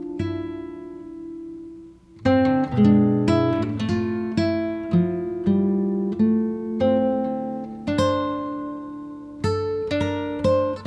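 Acoustic guitar music, plucked notes and chords. A chord rings and fades almost to silence about two seconds in, then a picked melody resumes at an even pace.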